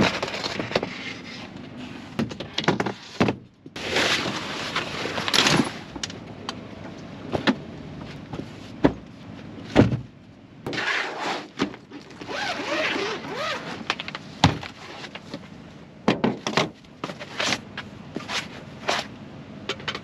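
Knocks, clunks and scraping of gear being handled inside a pickup truck's camper shell: a board panel pushed into place and cushions shifted. Irregular sharp knocks, with two longer stretches of rustling and sliding.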